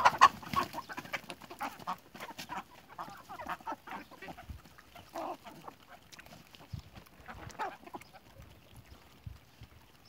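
A flock of domestic hens clucking while they feed. Calls come thick and loud in the first second, then as scattered clucks.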